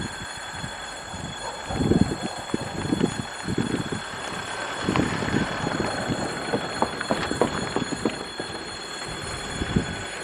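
2M62 diesel locomotive approaching at low speed, its diesel engines running with low, irregular rumbles and knocks, while a level-crossing warning bell rings steadily over it.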